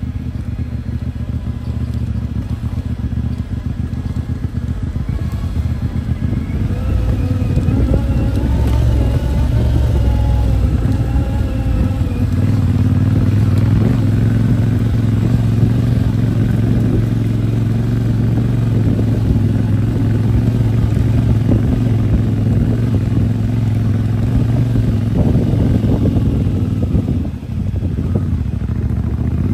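CFMOTO 450MT parallel-twin engine running under load as the motorcycle is ridden off-road carrying two people. It gets louder and pulls harder from about six seconds in, and eases briefly near the end.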